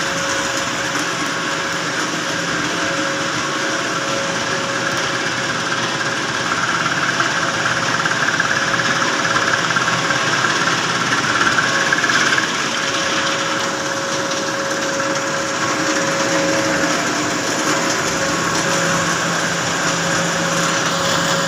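Machinery running steadily: a constant rushing noise with a steady whine, louder for about six seconds midway.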